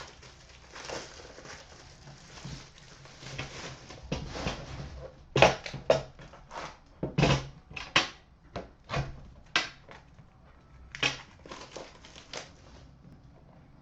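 Plastic wrapping crinkling and tearing as a sealed box of trading cards is opened by hand. Soft rustling gives way about five seconds in to a run of sharp crackles and snaps.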